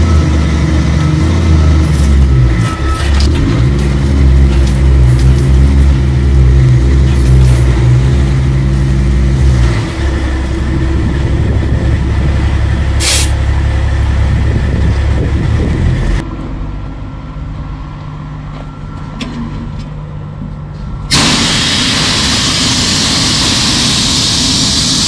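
Kenworth C500 winch truck's diesel engine pulling hard, then easing off about ten seconds in, with a short sharp hiss of air a few seconds later. Near the end the engine sound gives way to a loud steady rushing noise.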